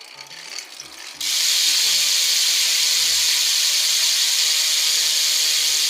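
BMX rear hub (We The People Supreme) freewheeling as the wheel is spun, its pawls ratcheting so fast that the clicks run together into a loud, steady buzz. The buzz starts suddenly about a second in, after a little faint ticking.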